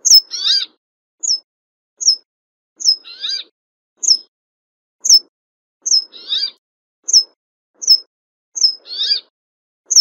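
Brambling calling: short, high, downward-slurred notes about once a second, with a longer, rougher, lower call about every three seconds, four times in all.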